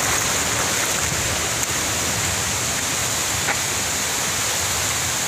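Shallow rocky stream running over stones, a steady rushing noise, with a couple of faint clicks.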